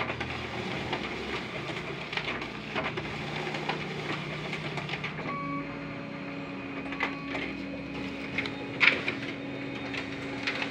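Canon imageRUNNER 3235i copier running a two-sided copy job: its automatic document feeder pulls the original through and flips it to scan both sides, a steady mechanical whirr with clicks and clacks. About five seconds in, the sound settles into a steadier hum, and there is a sharp clack about two seconds before the end.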